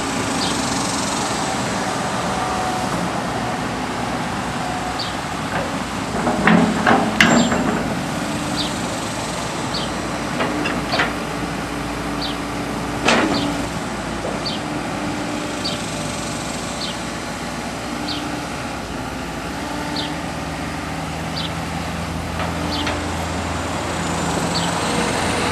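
Komatsu PC160LC-7KA excavator's four-cylinder turbo diesel engine running steadily, with a cluster of loud metallic knocks about six to seven seconds in and another single knock about thirteen seconds in.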